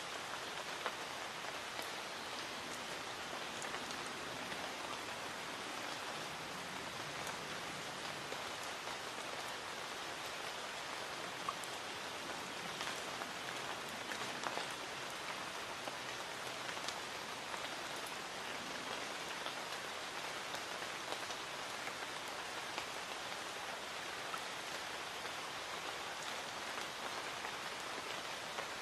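Light rain falling steadily: an even hiss with many individual drops ticking sharply through it.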